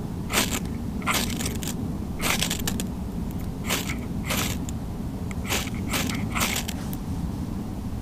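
Ferro rod struck repeatedly, about eight sharp scraping strikes at uneven intervals: sparks being thrown at tinder to light a campfire that has not yet caught.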